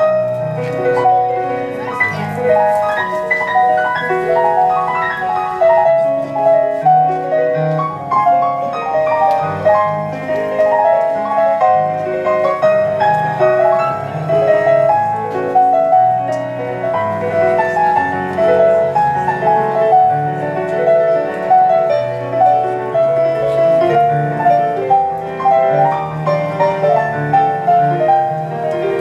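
Electronic keyboard played with a piano sound: a flowing, continuous melody of many quick notes over lower bass notes.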